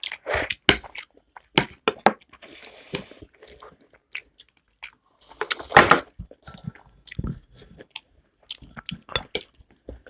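Close-miked mukbang eating: a person chewing and smacking their lips over a mouthful of food, with many short wet clicks. Two longer hissing sounds stand out, about two and a half and five and a half seconds in.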